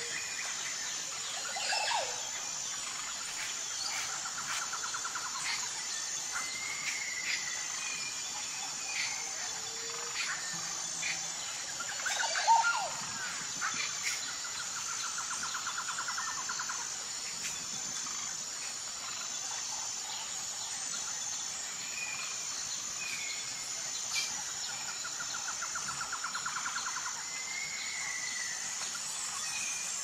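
Nature ambience: a steady high insect drone with a faint pulsing chirp, and scattered bird calls and chirps, including a rapid trill heard three times and a louder call about twelve seconds in.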